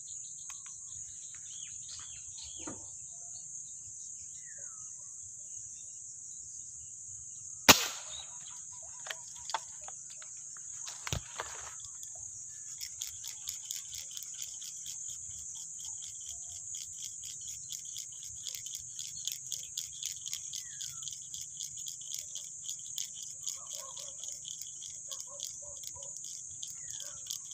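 Insects calling in a steady high-pitched chorus, joined about twelve seconds in by a fast pulsing trill. A sharp click, the loudest sound, comes about eight seconds in, and a smaller one a few seconds later.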